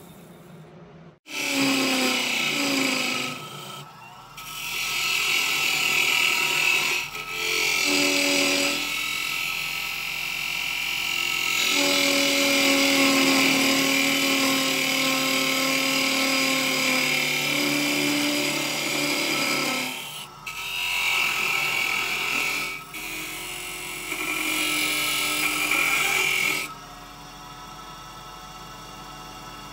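Parting tool cutting into a spinning wooden blank on a wood lathe: a scraping cut with a pitched ring, in several passes with short breaks. The cutting starts just over a second in and stops about three seconds before the end, leaving the lathe motor running.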